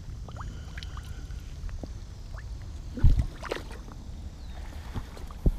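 Shallow pond water sloshing and trickling around a wading angler's hands and waders among the weeds, with two sharp thumps, about three seconds in and near the end.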